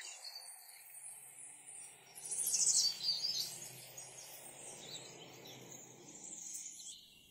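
Faint nature ambience: high bird chirps and insect-like trills over a low steady hiss, strongest in a short cluster about two to three seconds in.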